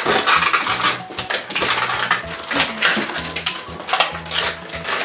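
Plastic toy packaging being handled and opened by hand: crinkling and crackling with many small clicks and taps.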